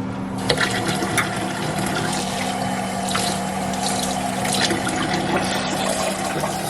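Water running and splashing, starting about half a second in, as a half cup of water is measured out for a stovetop pot.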